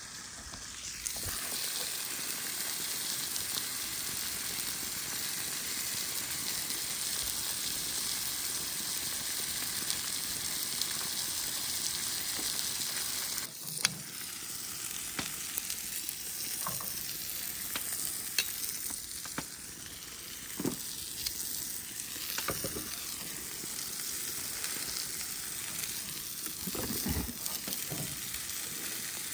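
Steaks sizzling as they cook over a campfire, a steady hiss, with a sharp click about halfway through and a few short knocks and clicks after it.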